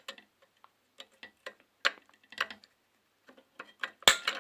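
Scattered small metallic clicks and taps from hand tools and small parts being worked on a microwave magnetron, with a louder clack about four seconds in.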